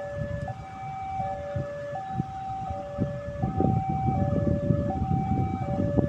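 Electronic two-tone warning alarm stepping steadily between a high and a low tone, each held under a second. Under it, the rumble of an approaching KAI CC 206 diesel locomotive grows louder from about halfway in, with irregular knocks.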